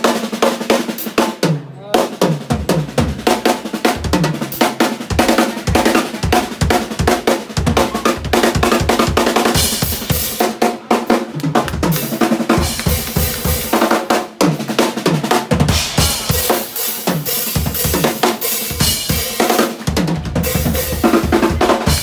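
Live band playing, the drum kit loudest, with kick drum, snare and rimshots, and a short break in the playing about two seconds in.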